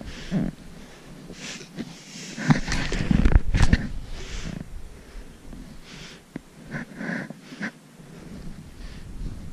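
A hiker breathing hard in irregular puffs, mixed with the crunching of steps through snow. The loudest stretch comes about three seconds in.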